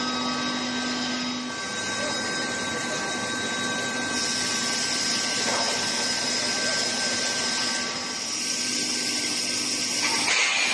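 Steel-pipe induction heating and hot-rolling line running: a steady industrial hum and noise with several constant tones, and a high steady whine that comes in about four seconds in and stops near the end.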